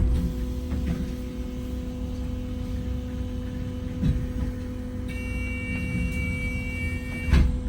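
Wright Gemini 2 hybrid double-decker bus standing with a steady low electric hum, then a high door-warning tone for about two seconds that ends in a sharp thump as the doors shut fast.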